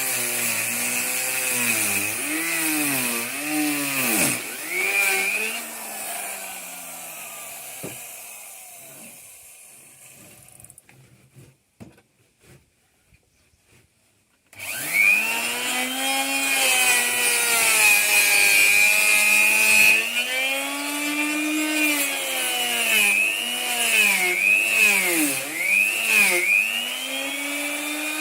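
Electric wood router cutting into wood, its motor pitch dipping and recovering again and again as the bit takes load. About six seconds in the motor is switched off and winds down to near silence. It starts again about fourteen and a half seconds in and goes on cutting, its pitch dipping under load.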